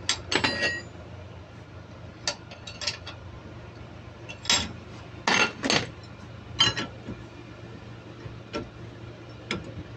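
Steel hand tools clinking and knocking against one another and the vise as a ring spanner is picked up and fitted onto a diesel fuel injector clamped in a bench vise. About ten short, sharp clinks come irregularly, bunched in the first second and again around the middle, over a steady low hum.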